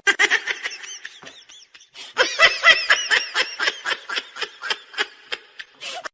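Someone laughing: a run of short, high-pitched laughs at about four a second, pausing briefly about a second in, then carrying on.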